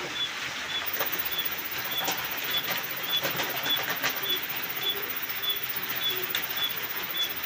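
Loose dry tea leaves pouring from a crinkling plastic packet into a thermos flask: rustling and crackling, thickest in the middle, over a steady hiss. A short high chirp repeats about twice a second, and a low call comes and goes.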